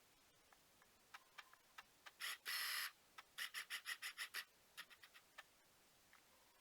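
Washing machine control panel being set: a few soft clicks, then a beep about half a second long, then a quick run of about eight short beeps, and a few more clicks.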